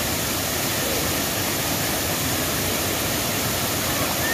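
Broad, low waterfall pouring over a rock ledge onto rocks: a loud, steady, unbroken rush of falling water.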